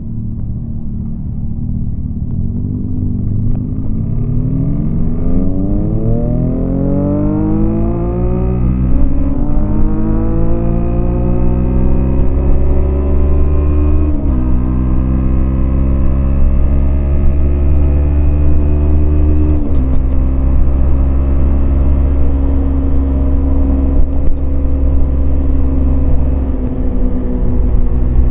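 Yamaha MT-25 parallel-twin engine accelerating through the gears. The pitch climbs and drops sharply at three upshifts, then holds at a steady, slowly rising pitch while cruising.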